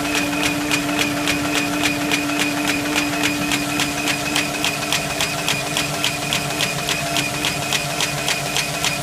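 Paper folding machine running: a steady motor hum with rapid, even clicking, about four clicks a second.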